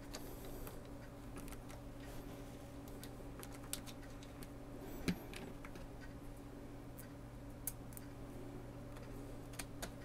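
Scattered small clicks and taps of a screwdriver and screw against the metal chassis of a Commodore C2N tape deck as a screw is fitted, the sharpest about five seconds in, over a steady low hum.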